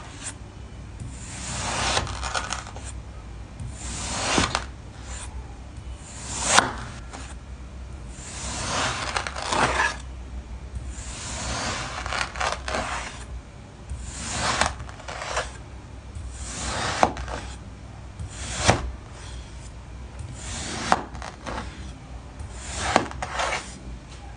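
Kinetic sand being cut with a blade in repeated strokes, about one every two seconds, each a gritty scraping hiss. A few sharp ticks stand out among the strokes.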